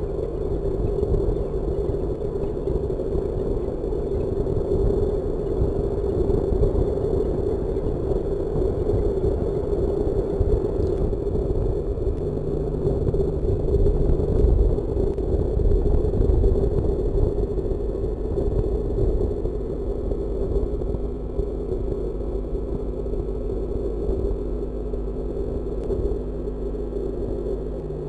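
Steady low rumbling noise with a faint steady hum beneath it, swelling slightly about halfway through; no bird calls stand out.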